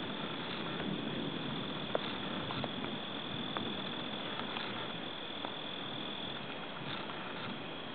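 Crickets trilling steadily in a high, even tone that drops out about six seconds in, over a low background hiss with a few faint clicks. The last of a thunder rumble fades in the first moment.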